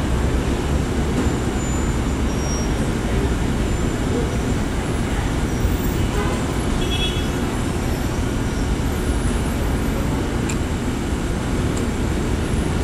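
Steady rumble of a New York City Subway 7 train rolling slowly along the elevated steel structure, blended with street traffic noise. A brief high tone about seven seconds in.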